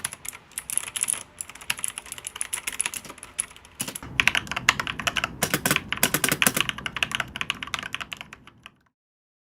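Fast typing on an RK987-A mechanical keyboard. About four seconds in, the keystrokes turn louder and deeper. The typing stops shortly before the end.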